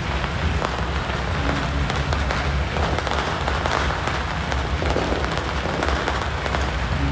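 Strings of firecrackers going off in a dense, continuous crackle, over a steady low hum.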